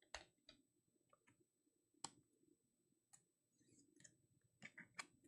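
Faint scattered clicks and taps of trading cards being handled and flipped through, about eight in all, several of them close together near the end.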